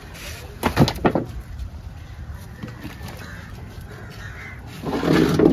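A crow cawing twice in quick succession, about a second in. Near the end comes another loud, lower-pitched sound of about half a second.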